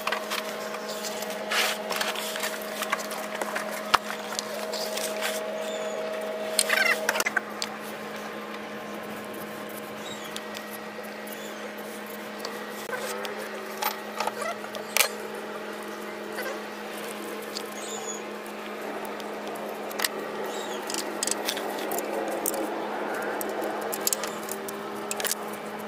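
Scattered sharp clicks and taps of hand tools on a heavy-duty diesel engine's exposed valve train, over a steady hum.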